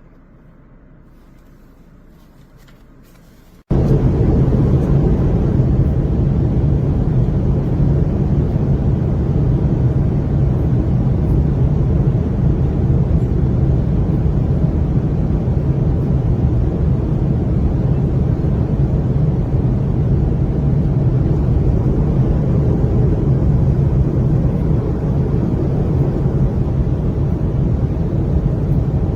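Faint low hum, then an abrupt cut about four seconds in to a loud, steady rumble and rush of air, the in-flight cabin noise of an airliner.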